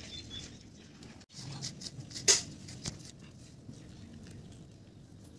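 Soft rustling and light taps of hands handling a spice packet and sprinkling spice powder onto fish on a banana leaf, with one brief sharp crackle about two seconds in. The sound drops out for a moment just after the first second.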